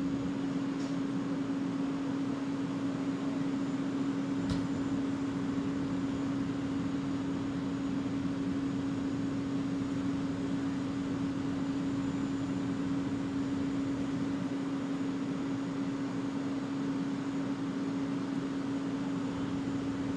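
Steady mechanical drone of idling emergency vehicles, holding one constant pitch over a hiss. A single sharp click comes about four and a half seconds in.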